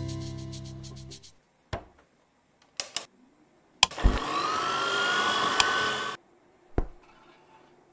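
Electric stand mixer switched on with a click and whirring with a rising whine for about two seconds, then cutting off suddenly. A few light clicks come before it and a single thump after.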